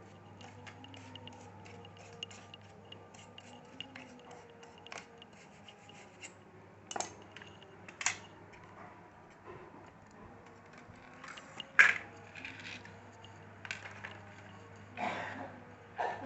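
Laptop parts being handled on a work surface: scattered small clicks and taps of plastic and metal pieces, a few sharper knocks as parts are set down, the loudest about twelve seconds in, and a brief scrape near the end.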